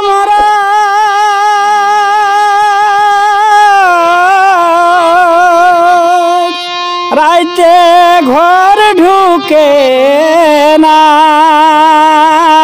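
Jhumur folk music: long held melodic notes with a wavering vibrato from voice and harmonium. There are sharp pitch slides about halfway through and a few drum strokes.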